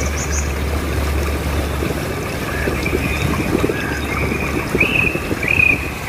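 Small waves washing and fizzing steadily on the shore, with wind rumbling on the microphone. Near the end a bird calls a quick run of short high notes.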